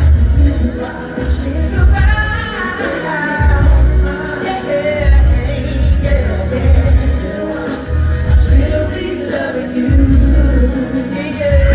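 Loud pop music with a singer over a heavy, pulsing bass.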